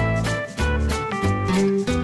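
Upbeat instrumental background music with a steady beat and a bass line that changes note about twice a second.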